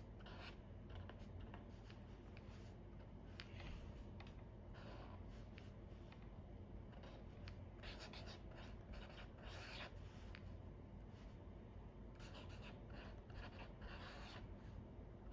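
Marker tip drawing on paper in short, irregular strokes with brief pauses between them.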